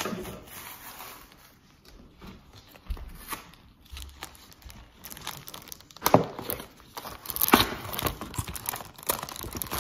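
A paper mailer envelope being torn open and a print in a clear plastic sleeve being pulled out: irregular tearing and crinkling, louder and busier in the second half.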